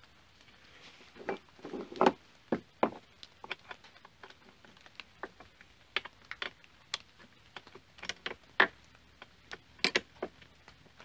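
Irregular metallic clicks and light knocks of the bar nuts being threaded onto a Black Max chainsaw's bar studs by hand and a screwdriver handled against the saw's side cover, with a cluster of louder knocks about two seconds in.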